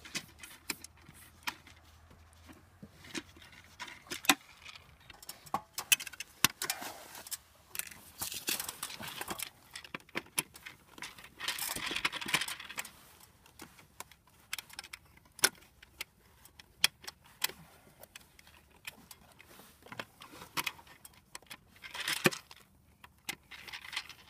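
Screwdriver working the terminal screws of a heat pump's outdoor disconnect box while wires are handled: irregular metallic clicks and clinks, with a few longer scraping stretches as the screws are turned.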